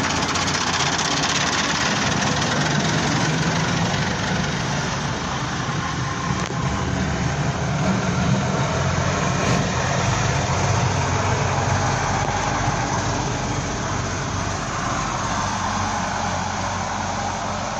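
Heavy vehicle engine running close by, a steady low rumble with road noise that eases slightly near the end.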